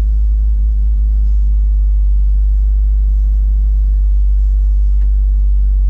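Steady low drone inside the cabin of a 2017 Subaru WRX being driven, its turbocharged 2.0-litre flat-four running at an even speed with road noise underneath.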